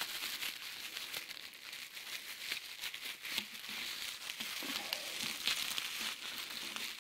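Plastic bubble wrap crinkling and rustling as it is pulled open by hand, a continuous crackly rustle with many small clicks.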